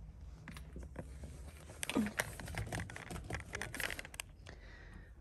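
Rustling and light clicks of hands shifting fabric cushions and old paper magazines, busiest in the middle couple of seconds.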